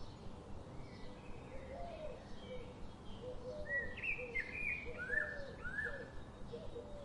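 Goslings peeping in short, sharply rising calls, several in quick succession and loudest around the middle, with a string of softer, lower short notes underneath.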